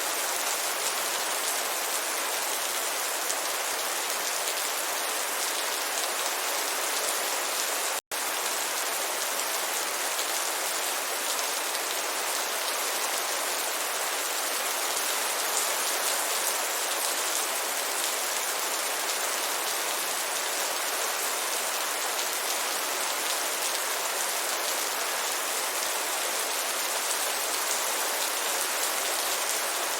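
Heavy rain falling in a steady, dense hiss of drops. It cuts out for an instant about eight seconds in.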